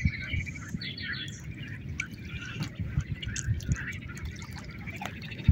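Shallow lake water lapping and trickling against a pebble shore, a steady fluttering wash with scattered small splashes and a low rumble underneath.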